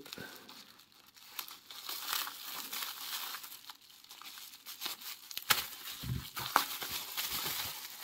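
Packaging crinkling and rustling as small padlocks and a little cardboard box are handled and opened, with a few sharp clicks in the second half.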